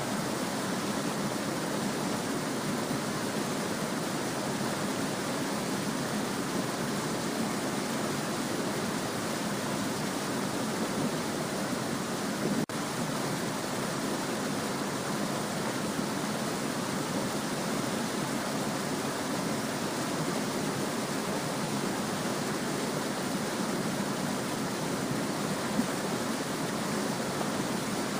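Small stream babbling, a steady, even rush of flowing water, with one brief click about halfway through.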